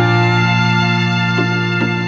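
Tudor/medieval-style background music, a chord held steadily.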